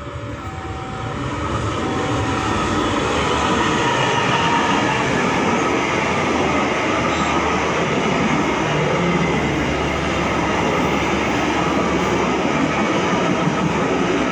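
Diesel-hauled passenger train passing at close range. The steady rumble and clatter of its coaches' wheels on the rails grows louder over the first two seconds, then holds. At the start, a level-crossing warning sounds two alternating tones, which fade out about two seconds in.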